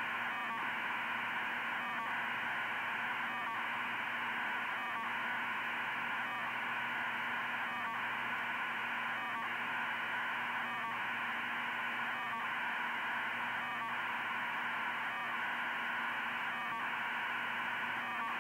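Receiver audio of a 2400-baud RTTY data signal from a high-altitude balloon flight computer: a continuous hiss-like rush of fast data with a faint blip about every one and a half seconds.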